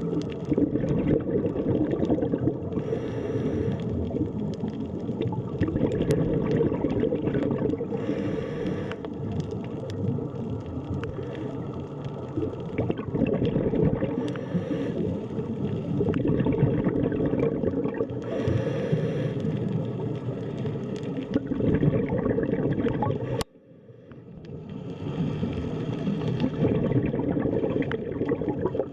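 Underwater sea ambience: a dense, muffled rush of water, with a brighter hissing swell about every five or six seconds. About 23 seconds in it cuts out abruptly and fades back up.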